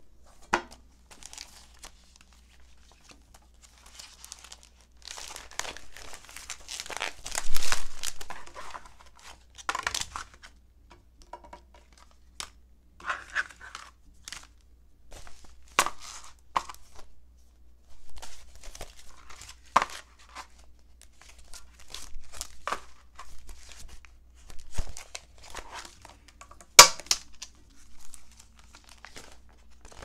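Clear plastic pocket pages for a ring binder crinkling and rustling as they are handled and shuffled, with scattered sharp clicks and taps. The loudest click comes near the end.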